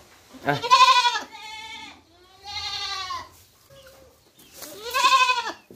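Domestic goats bleating: three long, wavering bleats, the first and last loudest.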